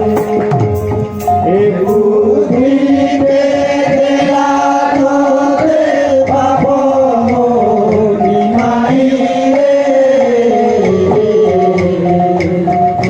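Devotional kirtan music: a voice holds a long, wavering melodic line with gliding pitch, over hand-drum and cymbal strokes that are sharpest in the first two seconds.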